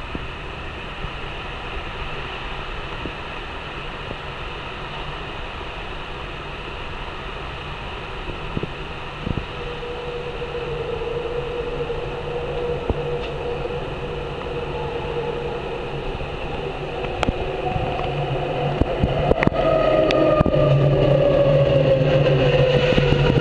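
Vancouver SkyTrain approaching and drawing close, getting steadily louder. Its linear induction motors give a whine that slowly falls in pitch, joined by a second, higher falling whine and a few sharp clicks from the guideway as the train comes alongside.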